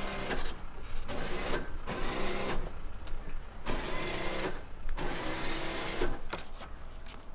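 Electric winch motor whining in short stop-start spells of about half a second to a second each, paying out a strapped car down transporter ramps a few centimetres at a time.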